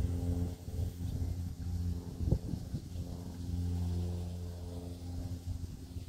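A low, steady hum with even overtones, like a motor running, with a sharp knock about two seconds in.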